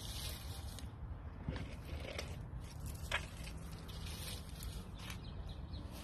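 Faint rustling and a few soft crackles as a dead, dry potato plant and its soil are shaken out of a plastic trough planter by hand, over a steady low background rumble.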